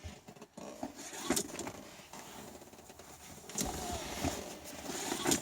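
Hands working seat trim and upholstery back into place: irregular scraping and rustling with several sharp knocks, the last and loudest near the end.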